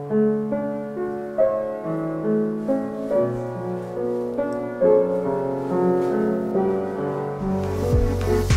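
Upright piano played: a slow melody over held chords. Near the end a backing track comes in with deep bass and a drum beat of about two strokes a second.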